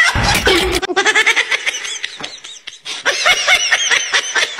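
Laughter: quick repeated bursts of snickering, with wavering high-pitched squeals.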